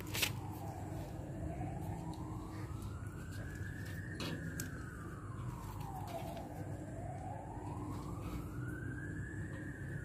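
Emergency vehicle siren in a slow wail, its pitch rising over about three seconds and falling again, twice over. A few sharp clicks near the start and about four seconds in.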